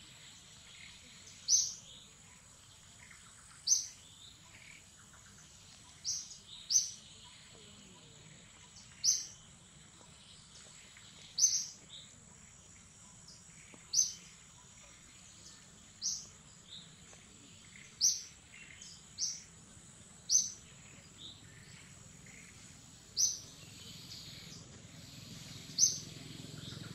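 A bird calling repeatedly: a short, high-pitched chirp every two to two and a half seconds, sometimes doubled, over a faint steady high tone.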